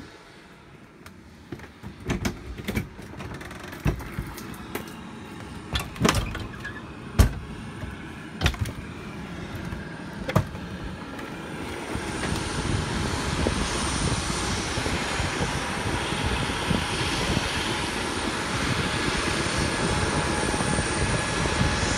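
A string of sharp knocks and clunks of hands and feet on metal as someone climbs up through a hatch in a C-5A's fuselage. About halfway through they give way to a steady, loud rushing roar of outdoor aircraft noise on top of the fuselage.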